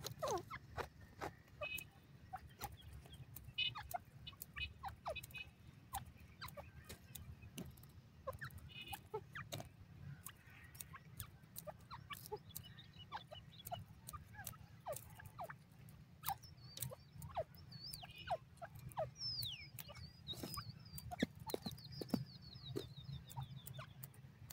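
Grey partridge foraging close up: irregular light ticks and taps with short soft falling chirps, and in the second half a run of higher, wavering whistled notes.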